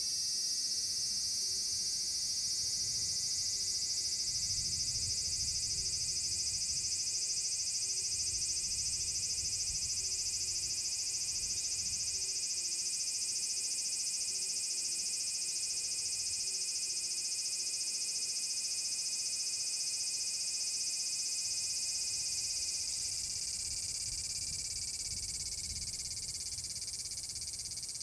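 Large brown cicada (aburazemi) singing: a continuous high buzzing drone that swells in over the first few seconds, holds steady, and eases off near the end.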